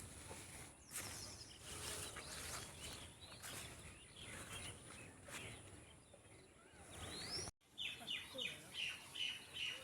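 Birds chirping and calling against faint rural ambience. After a break near the end, a bird gives a quick run of short repeated calls, about three a second.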